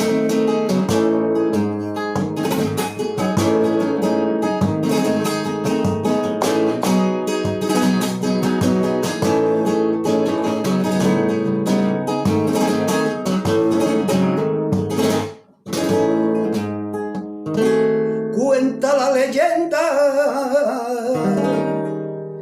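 Flamenco acoustic guitar playing a rhythmic strummed and picked introduction with rapid strokes. It breaks off briefly about fifteen seconds in, then resumes. Near the end a voice comes in singing a wavering, drawn-out line over the guitar.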